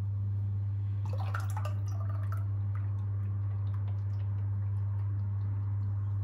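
Milk being poured from a glass into a well in flour, with a few drips and splashes, over a steady low hum.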